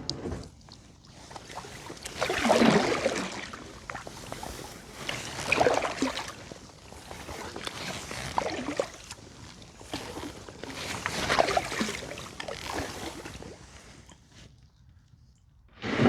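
Kayak paddle strokes in calm lake water: a splash and trickle about every three seconds, which stop near the end.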